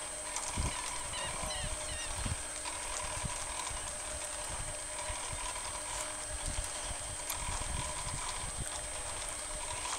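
Distant paramotor engine, a faint steady drone from the flying paraglider's propeller motor. Irregular low thumps and rumble, typical of wind buffeting the microphone, sit under it.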